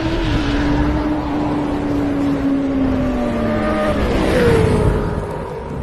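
Sound-effect sport-motorcycle engine running at high revs, with a steady high note that slowly sinks, then a second quick downward glide about four seconds in, like a bike speeding past.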